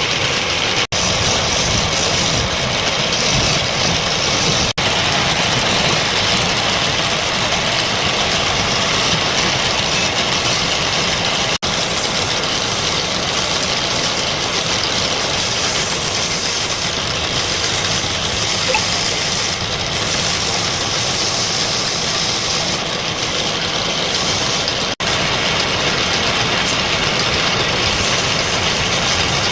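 Wood lathe running: a loud, steady machine noise that drops out for an instant four times.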